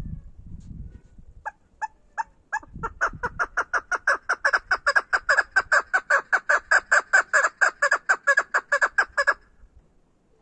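Female chukar partridge calling from its cage: single spaced notes that quicken into a rapid, even run of clucking notes, about six a second, then stop suddenly.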